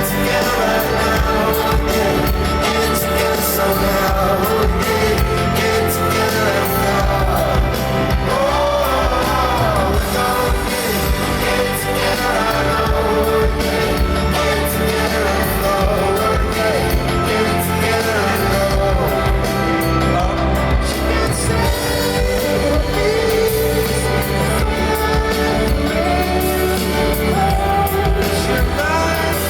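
A live pop-rock band playing with singing, loud and steady throughout.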